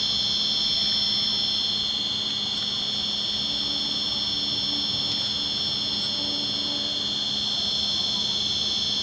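1:12-scale RC excavator at work: a steady high-pitched electric whine from its motors and drive electronics. A lower motor hum comes in for a few seconds in the middle as the boom and bucket move. A few faint ticks sound near the middle.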